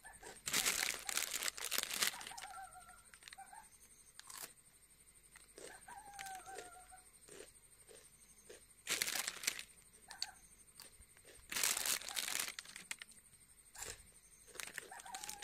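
Plastic snack packet crinkling in loud bursts: once about a second in, again around nine seconds and around twelve seconds, as crunchy fried snack is tipped from it and eaten, with quieter crunching between the bursts.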